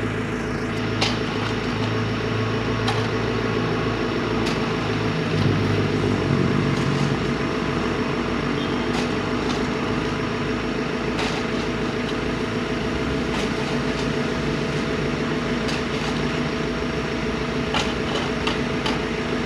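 A motor vehicle engine running steadily at idle, its pitch shifting briefly about six seconds in, with a few scattered clicks and knocks.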